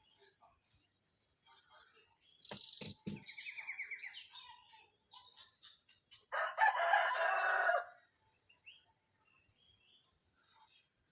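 A rooster crowing once, about six seconds in, a loud call lasting about a second and a half. Earlier come two short knocks and a brief, fast-pulsed chirping.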